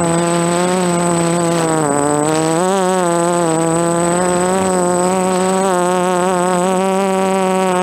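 DJI F330 Flame Wheel quadcopter's brushless motors and propellers buzzing steadily in flight. The pitch dips briefly about two seconds in, then rises and wavers as the throttle changes.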